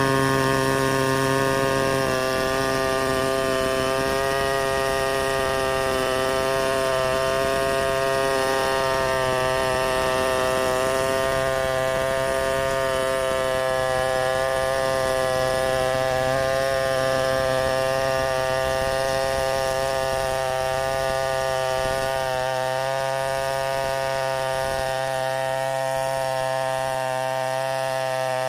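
Two-stroke chainsaw running at steady high revs, holding an even, unbroken pitch.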